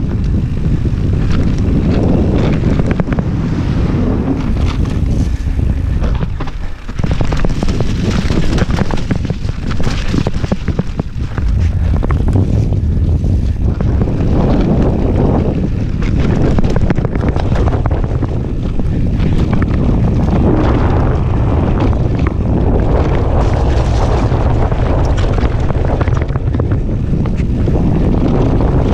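Wind buffeting the microphone of a mountain biker's on-board camera during a fast descent, over tyre noise and the bike rattling across rough trail, with a brief lull about seven seconds in.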